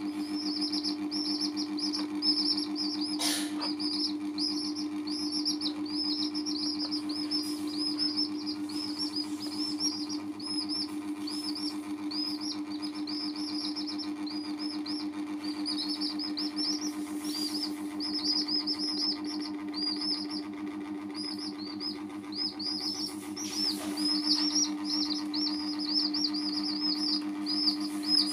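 Young domestic chicks peeping continuously in rapid, high, short chirps, over a steady low hum.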